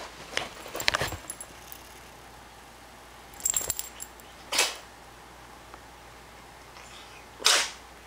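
A cat sneezing in a series of short, sharp bursts, the loudest near the end.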